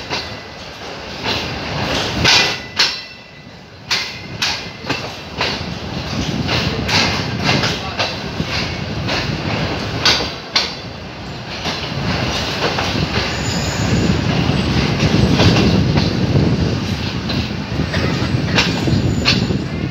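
A passenger train's coach wheels running on the track, clicking irregularly over rail joints and junction points, with a few brief thin wheel squeals. The low running rumble grows louder about halfway through.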